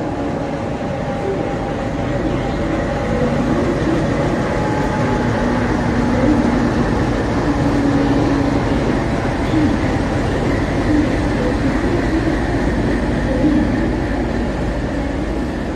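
Pune–Ahmedabad AC Duronto Express passenger rake rolling slowly along the station track while being shunted, a steady running rumble with a low hum.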